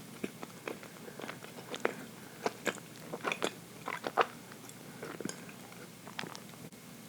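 Close-up mouth sounds of a person chewing dense chocolate cake: a string of irregular small clicks, busiest in the middle.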